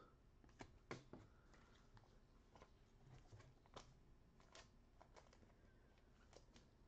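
Near silence: room tone with a few faint, scattered clicks and taps.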